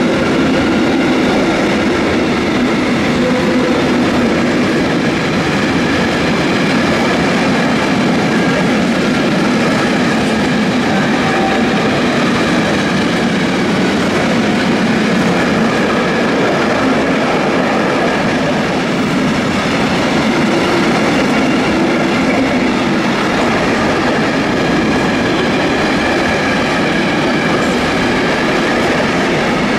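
A train running past on the tracks, its wheels clattering over the rails in a steady, loud, continuous rumble.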